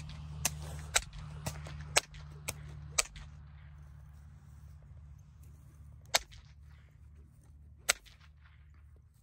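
A whip cracking: seven sharp snaps about half a second apart, then two more single cracks a few seconds later, over a low steady rumble that fades after the first few seconds.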